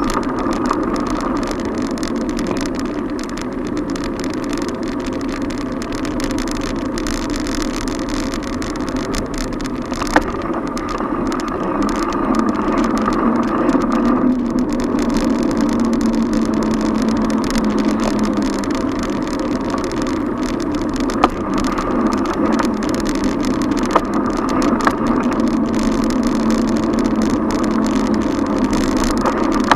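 Steady road and traffic noise from a camera riding on a moving bicycle through city streets: a continuous rumble of tyres, wind and passing cars, with a few sharp clicks or knocks, likely bumps in the road.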